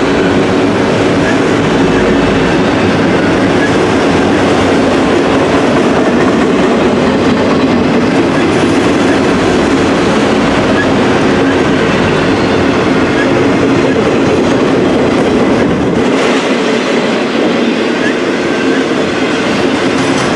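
A train rolling past, a steady loud noise of wheels running on the rails; the deepest rumble falls away about sixteen seconds in.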